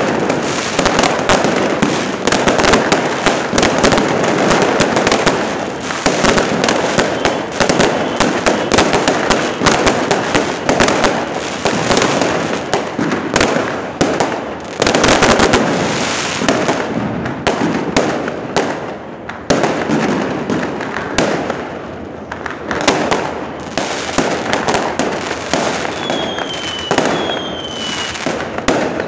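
A dense, loud barrage of aerial fireworks: many overlapping bangs and crackles from bursting shells and firecrackers, with a few short falling whistles near the end.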